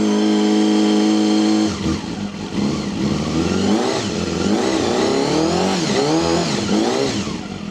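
Honda CBR250RR MC22's 250 cc inline-four engine, still a little cold, held at a steady raised rev for nearly two seconds, then blipped several times, the revs rising and falling. It runs cleanly on freshly cleaned and tuned carburettors.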